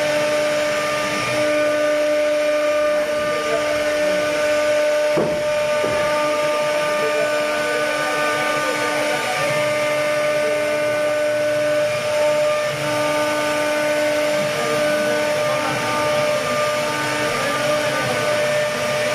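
CNC router spindle running with a steady whine while carving a wooden door, its lower tone coming and going as the cut changes. A brief knock about five seconds in.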